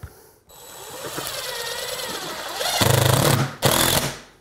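Cordless impact driver running a structural screw through a shelf bracket into a wall stud. The motor winds up from about half a second in, then hammers loudly in a fast rattle from near three seconds, pauses briefly, and hammers again before stopping.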